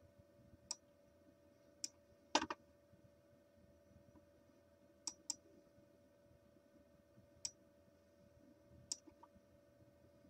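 Computer mouse clicking: about eight single clicks at irregular intervals, over a faint steady hum.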